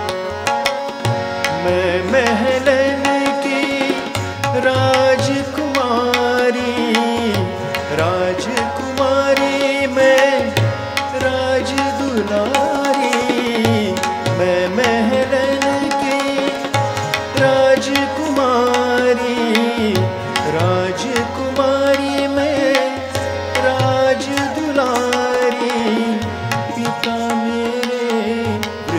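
Live Hindustani classical accompaniment: tabla playing a steady rhythmic cycle under a melody with sliding, bending notes over a sustained drone.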